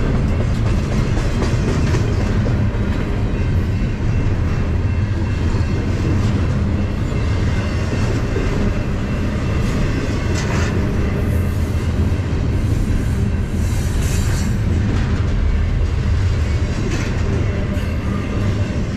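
Double-stack intermodal freight train rolling steadily past, its wheels rumbling and clacking over the rail joints. The last car goes by near the end.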